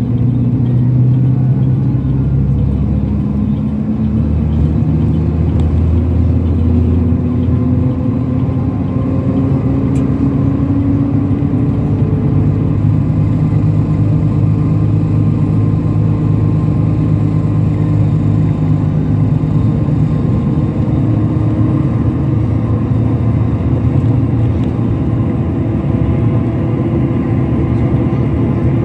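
Coach engine and road noise heard from inside the passenger cabin while driving at speed. The engine note climbs slowly and steadily throughout.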